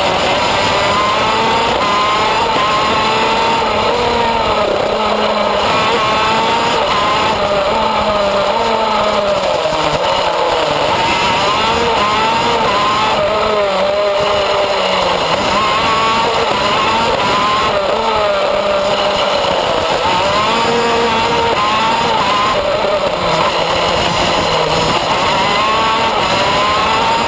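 Racing shifter kart's two-stroke engine at full race pace, loud and close. Its pitch climbs in quick rising steps and then falls back, over and over, as it revs up through the gears and drops off for the corners.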